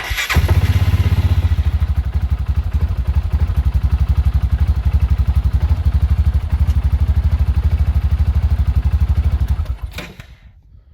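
Cub Cadet Challenger 500 side-by-side's engine starting almost at once and running at a steady idle with rapid, even exhaust pulses, then shut off about ten seconds in. It starts with the parking-brake switch bypassed by white and black wires joined together.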